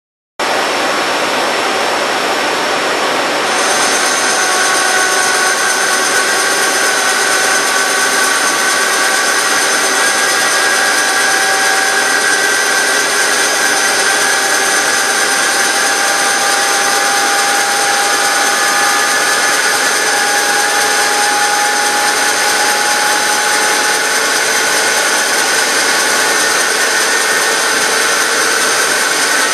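Dry high-speed turning of Inconel 718 with an NTK SX7 SiAlON ceramic insert on a lathe: a loud, steady cutting noise with several high, steady whining tones. It starts suddenly about half a second in and grows slightly louder and brighter a few seconds later.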